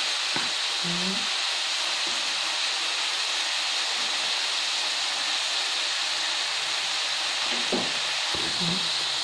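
Chunks of meat shallow-frying in hot oil in a frying pan, a steady sizzle.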